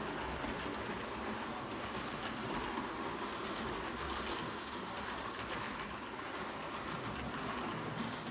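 Model freight train of timber-laden wagons rolling past on layout track: a steady rumble of small metal wheels on the rails with light, irregular clicks.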